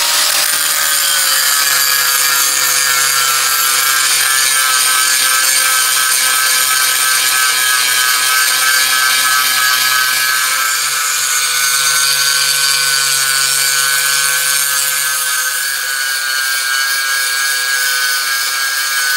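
Angle grinder with a flap disc running steadily against a solid iron swing keel, grinding old paint, filler and rust down to bare metal. It makes a continuous high whine with a grinding rasp, with little change in speed.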